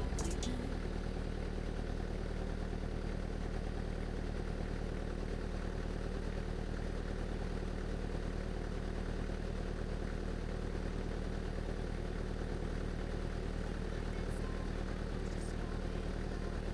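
Kubota tractor's diesel engine idling at a steady, unchanging speed.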